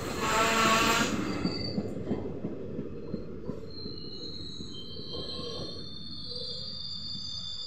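Brakes of ICF passenger coaches squealing as the train rolls past and slows. A loud burst of squeal comes in the first second, then the rumble of the coaches fades while thin, high, steady squeal tones carry on.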